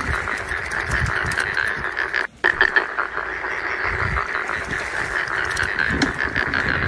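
Dense chorus of frogs calling continuously at night from a rice field, cutting out briefly about two seconds in, with a few low knocks from handling.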